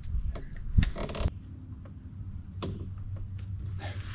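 A spinning reel's drag zipping in short bursts as a hooked goliath grouper takes line, with a few knocks of handling and a low steady hum underneath.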